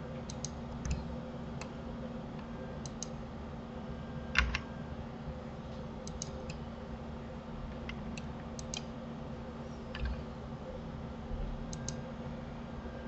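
Computer keyboard and mouse clicks, scattered and often in quick pairs, with one louder click about four and a half seconds in. A steady low hum runs underneath.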